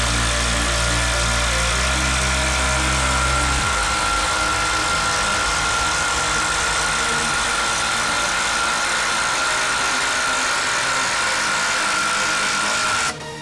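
Hilti 12-volt impact driver hammering continuously as it drives a long screw into timber under load, with a steady high whine over the rattle of the impacts; it stops suddenly near the end as the screw seats.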